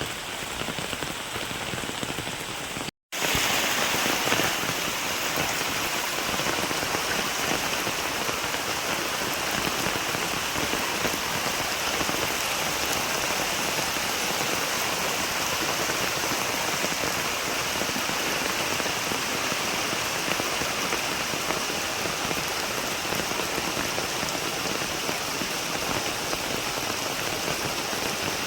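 Steady rain falling. It cuts out for a moment about three seconds in and then resumes slightly louder.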